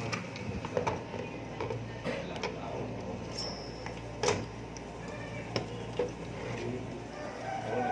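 Scattered light clicks and taps of hands and a screwdriver working on a computer case and motherboard, over a steady low hum. The sharpest tap comes about four seconds in.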